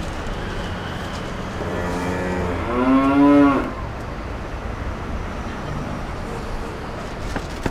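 A single long cow moo, starting low and swelling into a louder held note before it stops.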